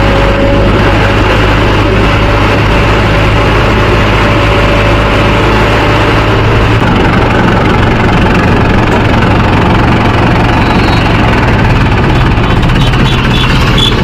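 Mahindra tractor's diesel engine running steadily, heard loud and close from the driver's seat.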